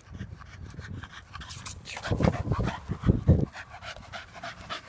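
Dog panting rapidly after a run, the breaths growing louder and heavier about halfway through as it comes up close.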